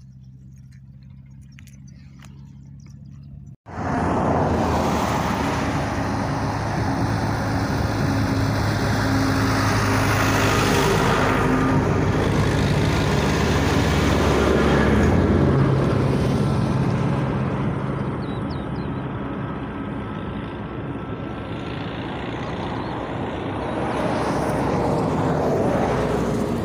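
Road traffic: after a few seconds of faint low hum, loud vehicle noise cuts in suddenly, engine hum under tyre noise, swelling twice as heavier vehicles pass.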